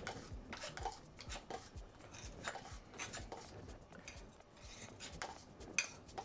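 Wet acrylic paint being scraped off a canvas and wiped into a plastic cup: quiet, irregular short scrapes and taps, a couple a second.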